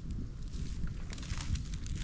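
Low rumble of wind buffeting the microphone, with a few short sharp clicks about one and a half seconds in.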